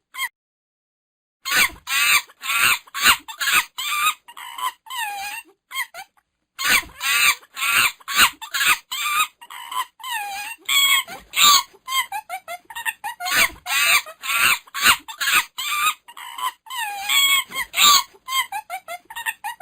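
Monkey calling in a rapid series of short, high-pitched chattering calls, about three to four a second, broken by a silent pause near the start and another around a third of the way in.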